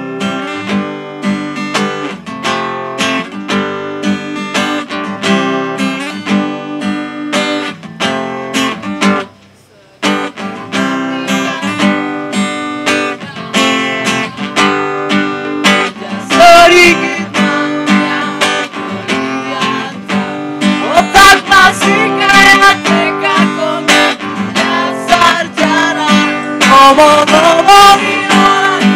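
Acoustic guitar strummed in a steady rhythm, breaking off briefly about nine seconds in before picking up again. Singing joins the guitar a little past halfway and is strongest near the end.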